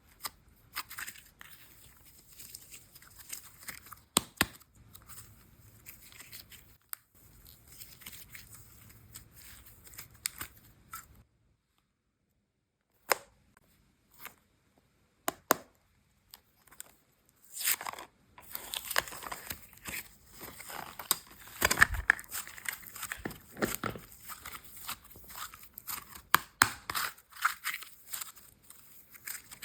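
Slime and clay handled close to the microphone: quick crackling, crinkling and tearing sounds, broken by a few seconds of dead silence near the middle, then a busier, louder run of crinkling.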